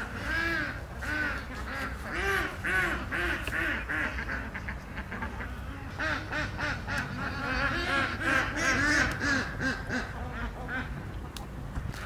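Domestic fowl calling repeatedly: a long run of short calls, each rising and then falling in pitch, a few a second. A brief lull comes about five seconds in before a second bout that fades near the end.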